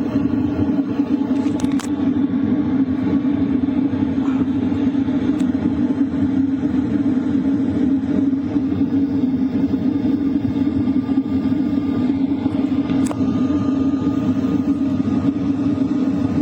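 LF Bros diesel heater running steadily at its 4 kilowatt setting: an even hum of air blowing from its hot-air duct, with the exhaust pipe outside also heard.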